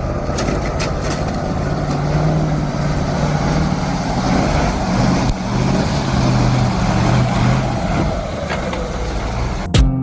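A heavy vehicle's engine running steadily at a low, even hum, with a few knocks in the first second.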